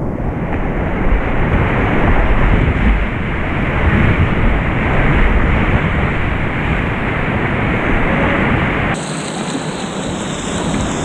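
Whitewater rapids rushing and splashing close around a kayak, heard through a GoPro's microphone with a low rumble underneath. About nine seconds in the rumble drops away and the rushing turns hissier.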